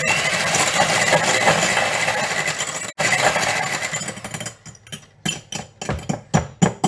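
Electric hand whisk beating eggs in a bowl, running for about four seconds with a brief stop about three seconds in, then a series of knocks and clatters.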